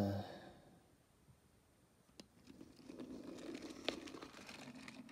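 Faint plastic scraping and rattling with scattered small clicks, starting about two seconds in: a LEGO train engine being moved by hand along the track and floor. A brief low sound comes right at the start and fades within about a second.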